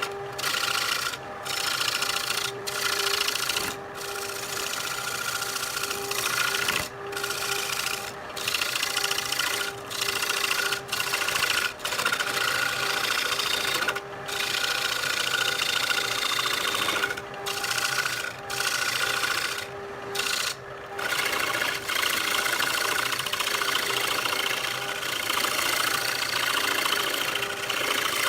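Wood lathe running with a steady motor hum while a cutting tool scrapes the spinning wooden blank in a rasping hiss. The cutting breaks off for a moment every second or two, then runs on unbroken for the last several seconds.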